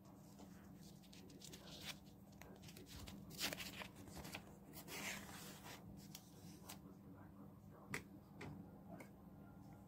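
Faint handling of Lego pieces: a few small plastic clicks and taps, with two brief rustles about three and a half and five seconds in.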